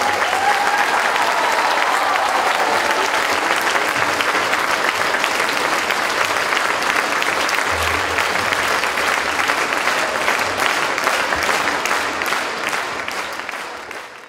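Audience applauding steadily at the end of the song; the applause fades out near the end.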